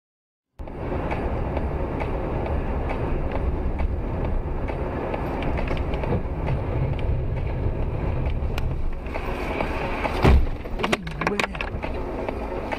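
Steady road and engine noise of a car driving, heard from inside through a dashcam. About ten seconds in comes a loud bang, followed by a few quick clattering knocks.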